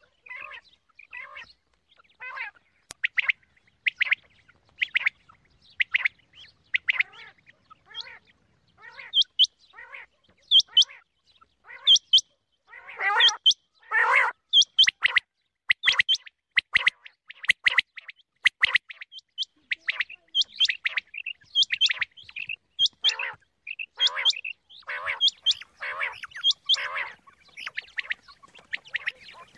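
Quail (batair) calling over and over: short, sharp chirping calls about once or twice a second, coming in quicker clusters in places. It is a female quail call of the kind played to lure quail into nets.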